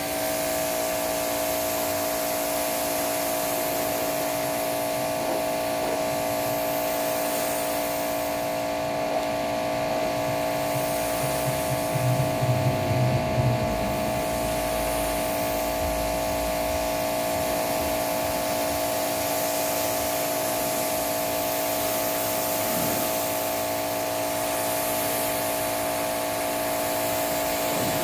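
Pressure washer running steadily, its motor and pump giving a constant hum under the hiss of the water jet spraying onto a car. It gets briefly louder, with a deeper rumble, about twelve seconds in.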